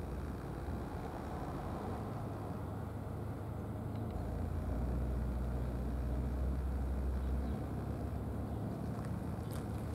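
Low, steady engine rumble from a nearby running motor, louder for a few seconds in the middle, with a few faint clicks near the end.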